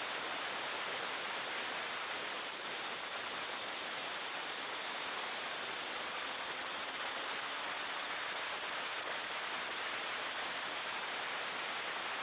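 Steady, even rushing noise inside a BMW E36 M3 race car at speed, with no clear engine note standing out.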